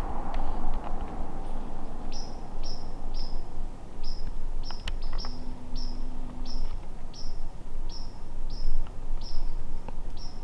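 A small bird calling a short, high chirp over and over, about twice a second, starting about two seconds in, over steady low background noise.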